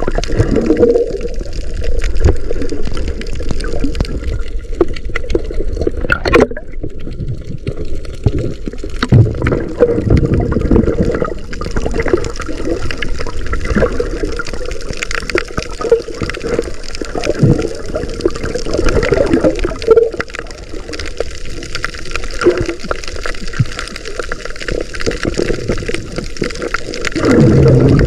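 Muffled underwater sound on a submerged camera: water sloshing and gurgling bubbles, with irregular swells every few seconds.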